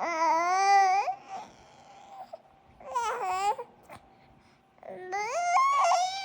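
Wordless, high-pitched vocal noises from one voice: three drawn-out cries with a wobbling pitch, the first ending in an upward glide, the second sliding down and the third sliding up near the end, with short quiet gaps between them.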